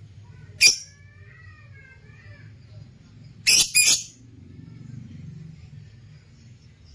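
Lutino opaline lovebirds calling: one sharp shriek about half a second in, soft twittering after it, then two sharp shrieks in quick succession about three and a half seconds in.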